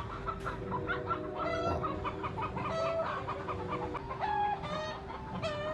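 Domestic chickens clucking again and again from their roost, with several short, higher calls mixed in, while grisons prowl beneath them. A steady hum runs underneath.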